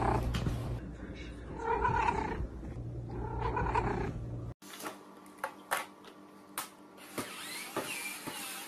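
A domestic cat making three drawn-out yowling calls, over a low steady hum. About four and a half seconds in the sound cuts off suddenly and gives way to quieter scattered clicks and taps.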